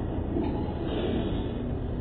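Small vertical sachet packing machine running, a steady mechanical rumble, with a louder, brighter stretch of its working cycle around the first second.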